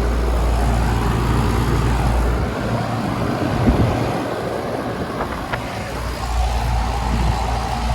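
Outdoor condensing unit of a 2003 Trane XR11 2.5-ton central air conditioner running: steady low hum from its Copeland scroll compressor under the air rush of the condenser fan. The low hum drops away for a few seconds midway, then returns.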